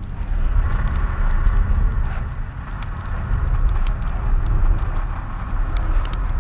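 Spooky ambient soundscape: a deep, steady low drone with a hiss above it and scattered sharp clicks and knocks at irregular moments.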